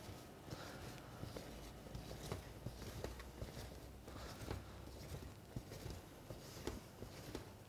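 Spatula folding a thick meringue and coconut mixture in a stainless steel bowl: faint, irregular soft taps and scrapes against the bowl, over a low steady hum.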